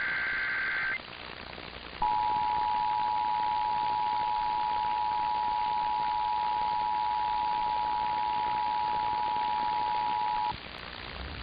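Emergency Alert System test received over the radio: the end of a SAME digital header burst of shrill warbling data tones stops about a second in, then after a short pause of hiss the EAS two-tone attention signal (853 and 960 Hz together) sounds steadily for about eight and a half seconds before cutting off, over steady radio hiss.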